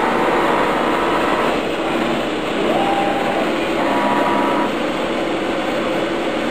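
Techno CNC router's axis drive motors whining as the gantry carries the newly picked-up tool from the tool rack over to the touchpad and jogs the spindle down for an automatic tool-length touch-off. Steady pitched tones run under it, with higher whines starting about two and a half seconds in and again near four seconds, stopping just before five seconds as the moves end.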